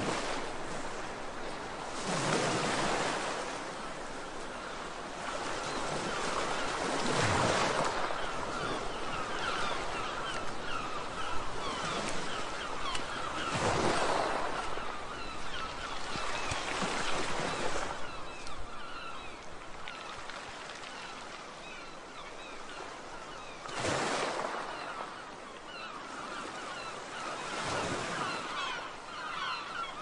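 Sea waves breaking and washing in, a surge of surf every four to six seconds over a steady hiss of water.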